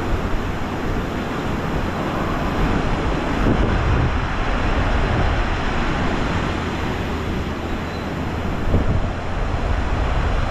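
Ocean surf washing at the beach, with wind buffeting the microphone: a steady rushing noise with a heavy low rumble.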